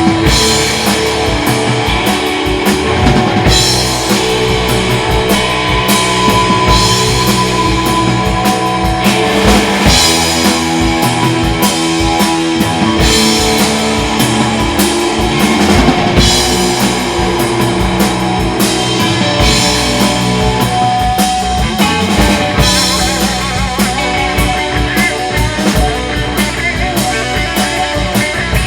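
Rock band playing live, an instrumental stretch: electric guitars holding sustained notes over a steady drum kit beat and bass.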